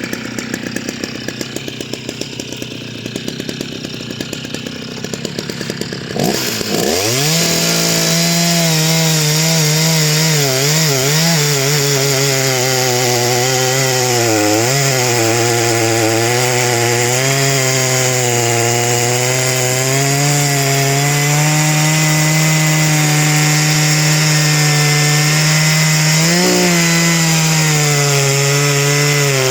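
Husqvarna 480CD 77cc two-stroke chainsaw engine idling with a rapid, even beat. About six seconds in it is throttled up to high revs, and it stays there with the pitch wavering, then holding steady.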